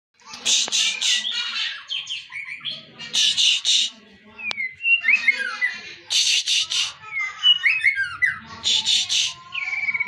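A caged white-rumped shama (murai batu) singing a song packed with learned 'isian' phrases. Loud, harsh rattling bursts come about every three seconds, with quick whistled slurs between them, and the song ends on a long warbling whistle.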